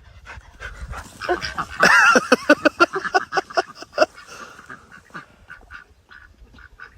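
Duck quacking in a rapid run of short calls, loudest about two seconds in and trailing off near the end.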